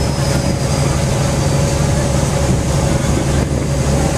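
An engine running with a steady low drone under loud rushing wind noise.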